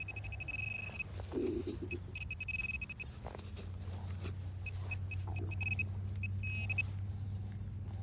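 Metal detector giving a steady high-pitched tone in several separate stretches over a target, with a low steady hum underneath and a few short knocks.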